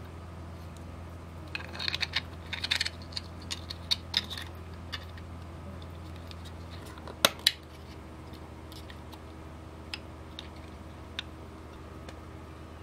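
3D-printed plastic lock-box parts handled and fitted together: a flurry of light clicks and knocks, then two sharp plastic clicks about a quarter-second apart a little past halfway, then a few scattered ticks, over a steady low hum.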